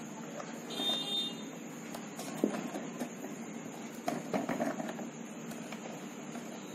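Light clicks and rustles of a mixer grinder's power wire and plastic housing being handled as the wire is pulled through, with a cluster of them a little after the middle, over a steady low background hum.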